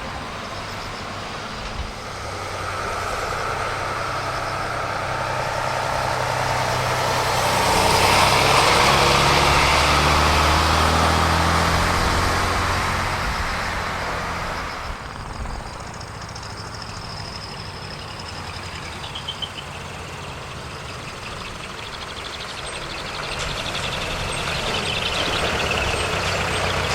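Decorated trucks driving past: a truck engine grows louder, is loudest from about 8 to 13 seconds in, and fades away, and another truck comes up near the end.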